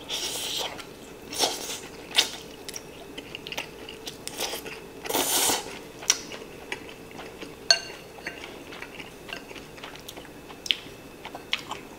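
Close-up eating: a person biting and chewing mouthfuls of a rice bowl, with chopsticks clicking and scraping on the ceramic bowl, and a louder noisy burst about five seconds in.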